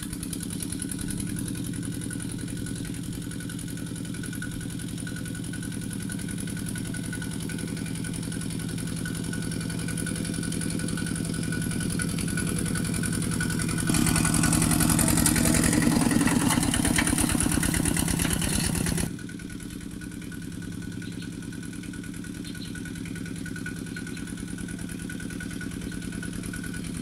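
Two-wheel walking tractor's single-cylinder diesel engine running steadily under load while tilling. About halfway through it grows louder and rougher for several seconds, then drops back abruptly to the steadier engine sound.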